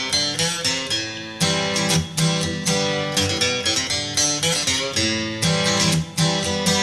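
Background music: an acoustic guitar plucking and strumming a quick, rhythmic pattern of notes.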